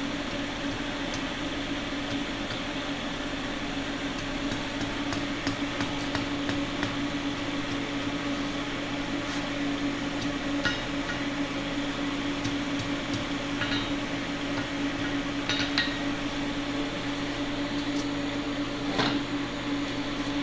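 Steady hum of a fan or blower running, with a few light metallic clinks and taps spread through it.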